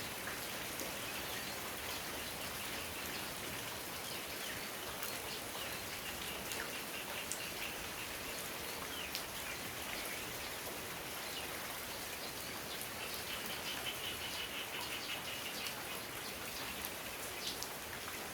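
Steady rain falling, with a dense patter of individual drops ticking on a surface. Faint high chirps come and go, most clearly for a couple of seconds near the end.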